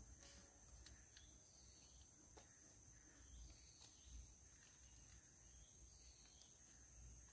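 Near silence: a faint, steady, high-pitched insect drone with a low rumble beneath it and a few faint clicks.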